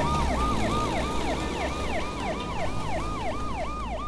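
Ambulance siren in a fast rising-and-falling yelp, about four sweeps a second, over a low steady rumble. It fades out near the end.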